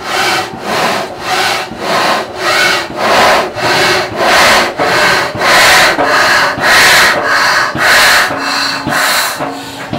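SunPulse low-temperature Stirling engine, filled with air, starting up and breathing: a rhythmic whoosh of ambient air drawn in and pushed out about one and a half times a second. This big breathing of air is the engine taking in ambient air, its working medium. The breaths grow louder toward the middle and ease near the end, and a steady low tone joins in the second half.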